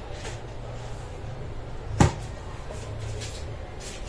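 A single sharp knock about two seconds in, over faint handling noises and a low steady hum.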